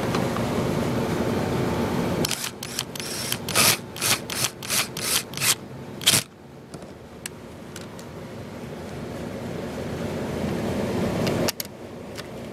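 Cordless drill-driver running as it drives a screw into a generator's plastic cover for about two seconds, then a series of sharp clicks, about four a second, for several seconds. After that, quieter handling with a few light ticks.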